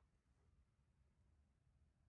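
Near silence: faint room tone with a low rumble.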